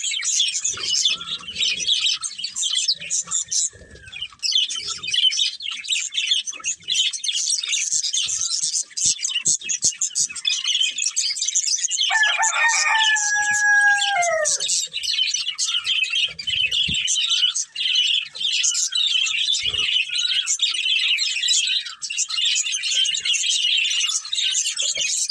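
Budgerigars chattering and chirping continuously in a dense, high-pitched warble. About halfway through, a longer, lower call slides down in pitch for about two seconds.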